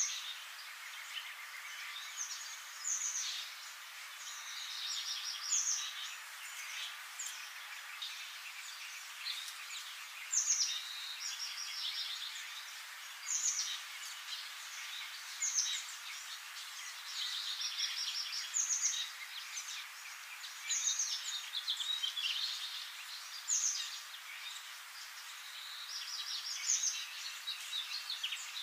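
Birds singing and chirping over a steady hiss. Short high chirps and quick falling calls repeat every two to three seconds, with smaller twitters in between.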